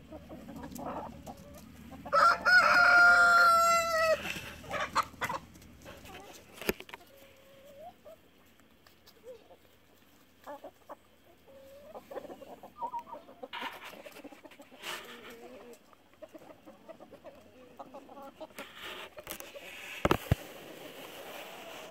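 A rooster crows once, loud and drawn out, about two seconds in. Hens in a foraging flock cluck in short scattered calls around it, and there is a brief low thump near the end.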